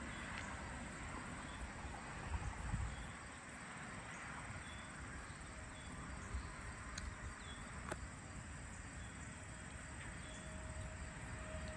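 Outdoor summer-evening ambience of insects chirping in a steady high-pitched chorus over a low rumble, with a couple of faint clicks about two-thirds of the way through.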